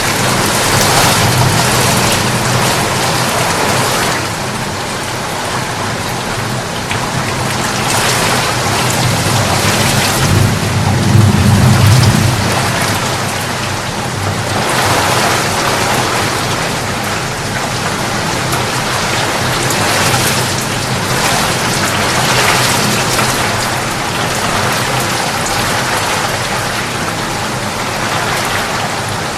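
Rain falling steadily, with a low rumble of thunder that swells about a second in and again, louder, about eleven seconds in.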